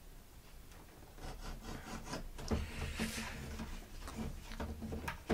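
Swiss Army knife blade scraping and cutting at a cardboard box, with rubbing and light clicks as the box and knife are handled. It starts about a second in.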